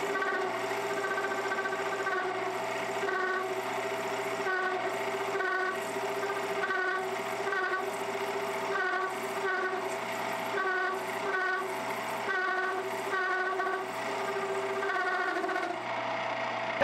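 1D601 benchtop lathe running and turning an aluminium bar: a steady motor hum and whine, with short higher-pitched squeals from the cut coming and going irregularly about once a second. The cutting note stops shortly before the end while the motor runs on. The owner puts the extra noise down, by the look of it, to the cutting tool being set too low and needing a shim.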